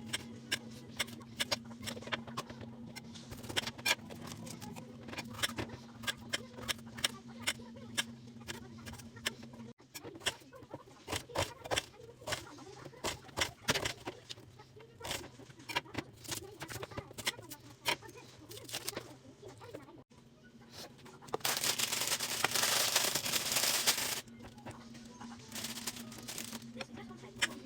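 Knife chopping vegetables on a chopping board: irregular sharp knocks throughout, over a steady low hum. A loud hiss lasts a couple of seconds about three quarters of the way in.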